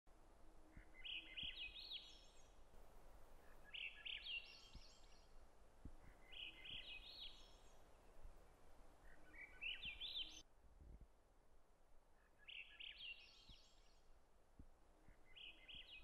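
A songbird singing the same short phrase six times, about every three seconds, each phrase climbing in pitch in quick steps. It is faint over a quiet background hiss.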